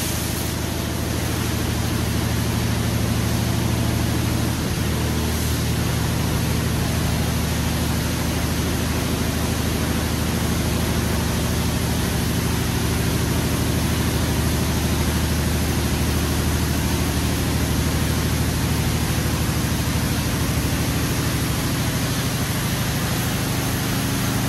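Automatic car wash equipment running with a loud, steady rushing hiss, over a steady low hum from an idling car engine.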